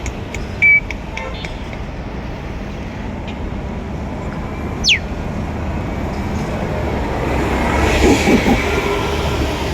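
City street noise: a steady low rumble that swells about eight seconds in. There is a short high chirp about a second in and a quick falling whistle about five seconds in.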